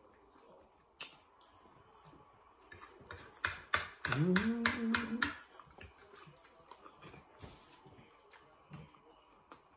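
Close-miked eating: chewing and lip-smacking with sharp clicks of forks on plates, thickest about three to five seconds in, where a short hummed "mmm" of enjoyment rises and holds.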